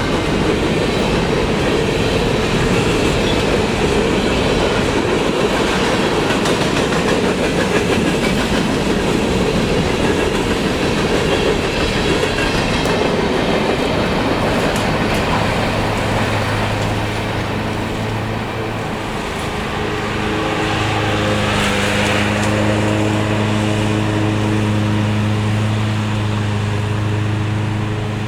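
Freight train cars rolling past a grade crossing, wheels clattering over the rail joints. About halfway through, the rail noise eases and a steady hum with several pitches becomes prominent.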